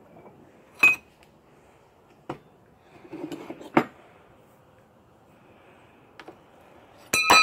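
A steel bench vise being loosened: a few sharp metallic clinks and clanks with faint scraping in between, then a louder ringing metallic clang near the end as the hardened knife blade is freed from the jaws.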